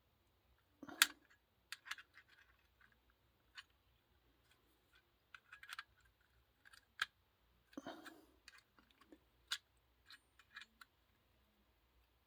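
Small pliers clicking and tapping against the metal contact tabs and plastic housing of an opened GFCI receptacle as the bent contacts are straightened, irregular light clicks with a few louder knocks.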